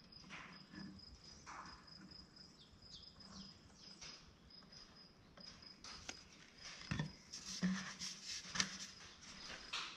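Faint insect chirping, a high steady pulsing tone, throughout. In the second half come a few light knocks and clatter as the glue bottle is set down and the mortar tubes are handled in the wooden rack; the sharpest knock is about seven seconds in.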